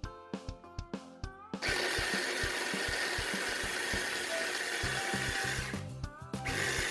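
Electric blender running, pureeing habanero and bell peppers, onion, ginger and garlic into a pepper sauce. It starts about a second and a half in, runs steadily for about four seconds, stops, then runs again in a short burst near the end. Background music with a beat plays underneath.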